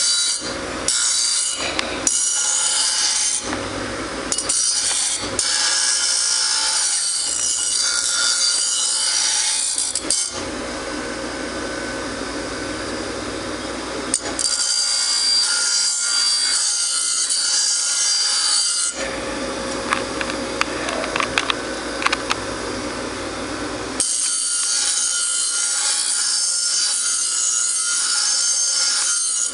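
Grinder running with a steady motor hum while a steel lawnmower blade is pressed to the wheel to sharpen it. It grinds in several short touches at first, then in three long passes, with the motor running on alone between them.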